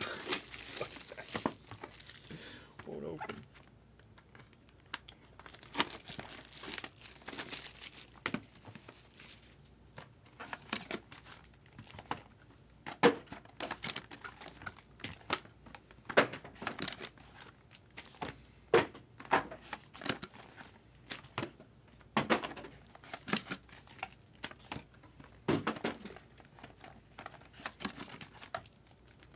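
Plastic wrapping on trading-card boxes being torn open and crumpled by hand: irregular crinkling and tearing rustles with scattered sharper crackles, the packaging hard to get open.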